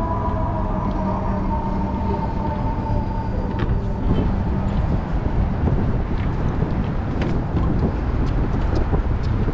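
Steady city traffic rumble, with an emergency vehicle siren's tone sliding down in pitch and fading out over the first three seconds.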